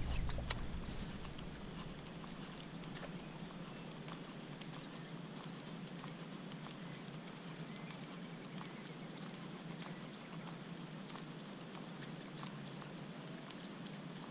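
Steady high-pitched insect drone from the surrounding forest, with faint scattered ticks. A low rumble dies away in the first second or two.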